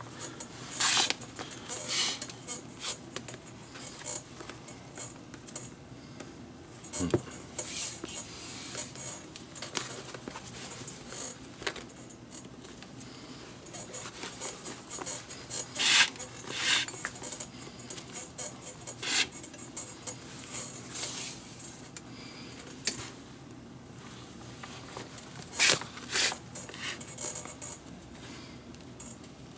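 Leather lace being pulled through the fingertip lace holes of a baseball glove with a lacing needle: short, irregular scraping strokes with small handling rustles in between.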